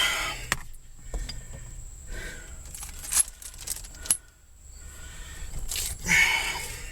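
Small metal parts clinking as they are handled, with a few sharp clicks and rustling between them.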